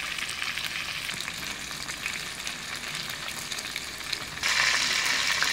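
Whole shell-on prawns frying in hot oil in a wok: a steady sizzle with small pops, turning much louder about four and a half seconds in.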